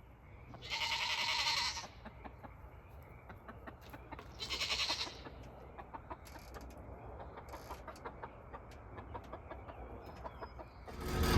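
Two loud farm-animal calls, the first about a second long and the second shorter about four seconds in, with faint small ticks in between.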